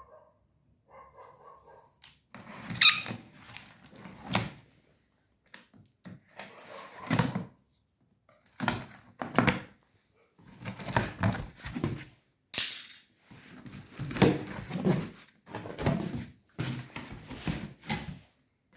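Cardboard box being opened by hand: tape, flaps and packing material torn, scraped and rustled in irregular spells with short pauses, with a brief squeak near the start.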